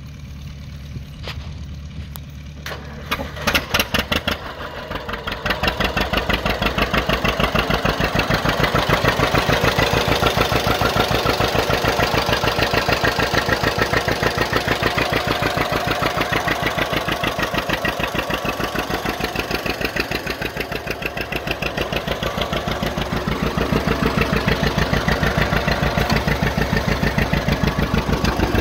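1958 John Deere 620's two-cylinder engine running with a popping exhaust beat. About three seconds in it fires slowly and unevenly, then picks up to a fast, even beat that stays loud, easing briefly about twenty seconds in.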